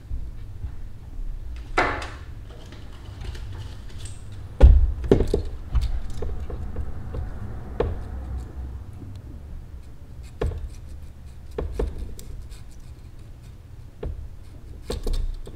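Light metal clicks, taps and one scrape from a feeler gauge and small hand tools working a motorcycle engine's valve adjuster while the valve lash is set. The knocks come singly every second or so, the loudest about five seconds in, over a low steady hum.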